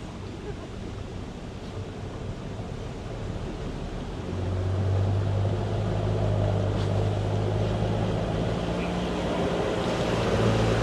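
A 4WD's engine running steadily through a creek crossing, over a wash of water noise. The engine note gets louder about four seconds in.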